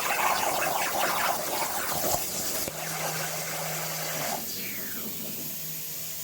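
CNC plasma cutter torch hissing and crackling as it cuts. About two seconds in the crackle eases and a low steady hum joins; just after four seconds the louder hiss drops away, leaving a softer steady hiss.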